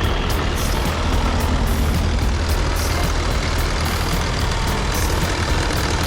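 Steady low engine rumble of a vehicle running, with a constant hiss of background noise.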